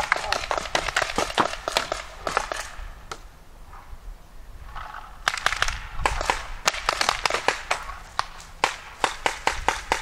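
Paintball markers firing in rapid strings of sharp pops. A volley runs for about the first three seconds, there is a short lull, then another volley starts about five seconds in and thins to single, evenly spaced shots near the end.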